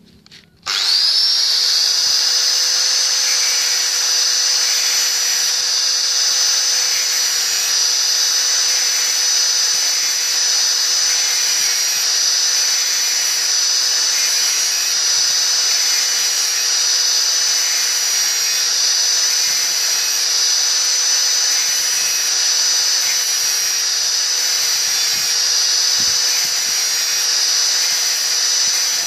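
Electric angle grinder switched on about a second in, spinning up at once to a steady high whine, then running on as it grinds the teeth of a brush cutter's toothed circular blade to sharpen them.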